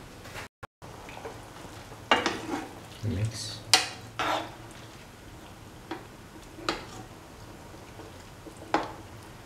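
A metal spoon stirring chicken liver and carrots in a watery gravy, scraping and clinking against the pan in several separate strokes, the sharpest nearly four seconds in.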